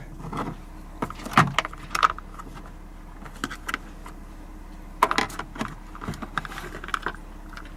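Light metallic clinks and clicks from a screwdriver and loose metal door-handle hardware being worked inside a car door, in scattered clusters.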